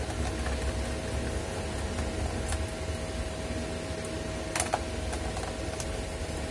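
Steady hum of an electric fan running in the room, with a few light clicks of small screws and a screwdriver being handled. The clearest click comes about four and a half seconds in.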